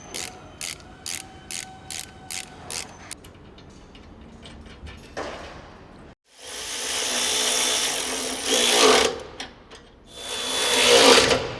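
Ratchet wrench clicking about three times a second as bracket bolts are tightened, then a power tool runs twice, each run lasting a few seconds and rising in pitch near its end.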